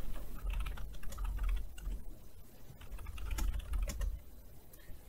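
Typing on a computer keyboard: a run of irregular key clicks, densest in the first couple of seconds, with another flurry a little past the middle and thinning out near the end.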